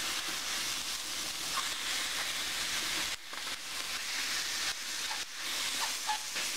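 Chicken breast fillets sizzling steadily in a hot nonstick frying pan while they are turned over with a fork. The sizzle dips briefly twice, about three and five seconds in.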